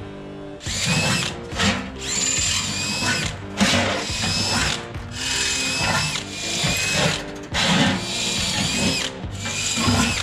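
Cordless drill boring into sheet steel in a series of short runs, its motor whine rising as each run starts.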